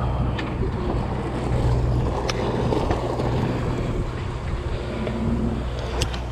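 Sportfishing boat's engine running with a steady low drone under wind and water noise. A few short sharp clicks, one about two seconds in and another near the end.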